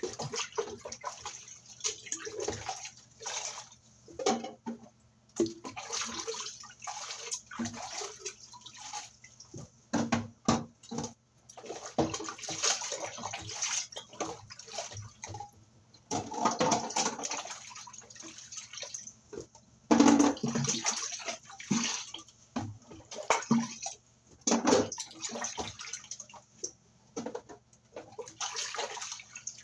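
Dishes being washed by hand in a basin of water: irregular splashing and sloshing, with sharp clinks of dishes now and then.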